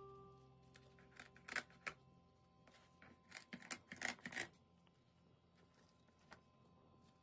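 Kitchen scissors snipping through the fins of a raw zander: a few sharp clicks about a second and a half in, then a quicker cluster of snips around four seconds.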